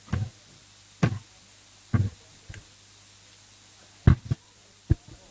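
Half a dozen short, irregular knocks and thumps, the loudest about four seconds in, over a faint steady low hum.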